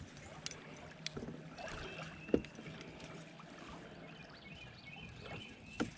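Quiet ambience from a kayak on the water, with a few scattered light knocks and clicks and some faint high chirping tones.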